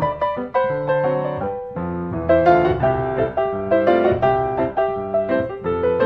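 Background piano music: a flowing melody over chords, with a new note struck every fraction of a second.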